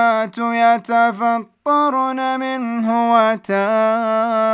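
A man reciting the Quran in melodic tajweed style, drawing out long held notes with ornamented turns of pitch, with a short breath about one and a half seconds in. The voice is dry, recorded without added effects.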